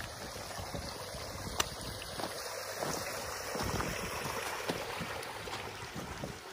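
Water running steadily in an open roadside snow-melting channel, a continuous rushing, with a few faint clicks.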